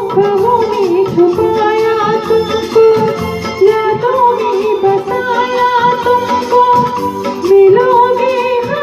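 A high voice singing a sustained, bending melody over instrumental accompaniment.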